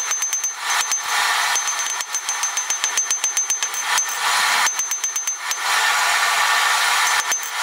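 Ball-peen hammer striking a hot mild steel bar on an anvil in sped-up, rapid strings of blows. The strings come at the start, about four seconds in and again near the end, with a steady rushing noise between and beneath them.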